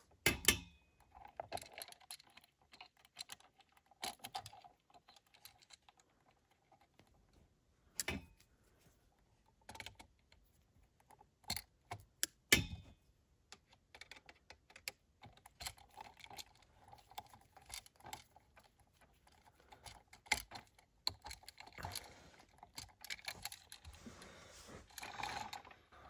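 Irregular small clicks and metal ticks of hand tools on wire: needle-nose pliers bending copper wire loops and a screwdriver turning the terminal screws of a new duplex electrical outlet. A few sharper clicks stand out among the lighter ticking.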